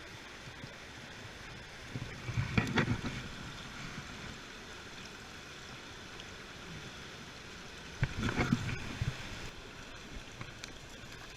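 Steady rush of flowing river water, with two louder, short bursts of noise about two and eight seconds in.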